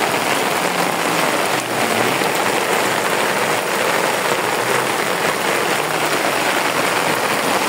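Heavy rain falling on lake water and a muddy bank, a steady even hiss.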